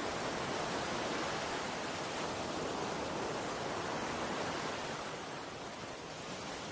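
Steady rushing noise with no distinct tones or clicks, easing off slightly near the end.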